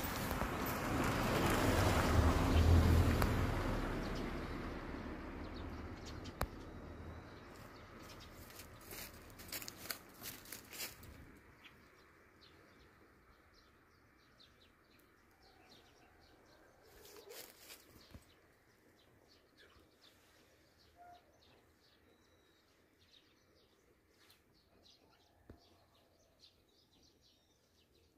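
A broad rush of noise swells over the first few seconds and fades away over about ten seconds, followed by quiet outdoor ambience with faint bird chirps and scattered light clicks.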